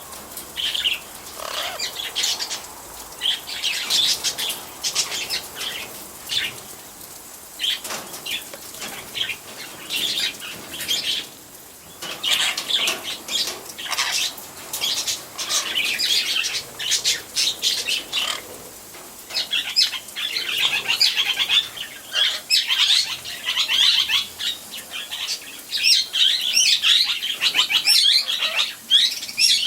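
A wet pet parrot flapping and fluttering its wings after a bath, in many short, irregular bursts, mixed with short chirps; the bursts get busier in the second half.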